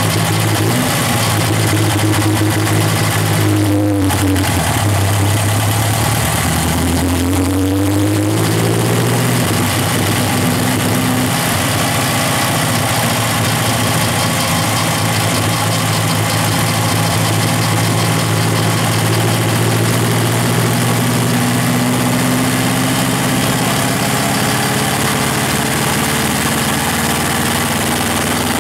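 Chevrolet Chevette's four-cylinder OHC engine and exhaust running. The pitch shifts up and down a few times in the first ten seconds, then holds steady and slowly rises toward the end.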